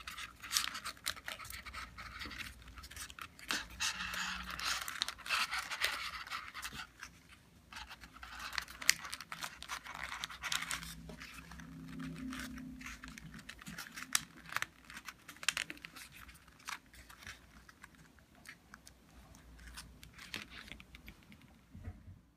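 Folded paper of a modular origami lotus rustling and crinkling as it is handled and its petals are pressed and pulled into shape, with many small sharp crackles.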